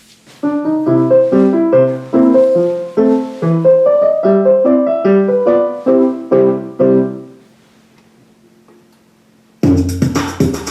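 Piano playing a quick run of chords for about seven seconds, the last ones ringing away into a short near-silence. Near the end a different piece of music with a deep bass and a beat starts.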